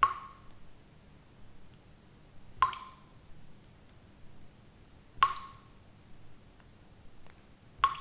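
Water droplets dripping at a steady rhythm, four drops about two and a half seconds apart, each a sharp drip with a short ringing tail. Fainter ticks fall in between.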